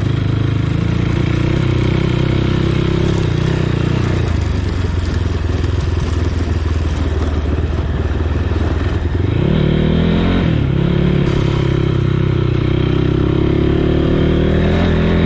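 Motorcycle engine running under way, with the engine note climbing sharply about nine and a half seconds in as the rider opens the throttle.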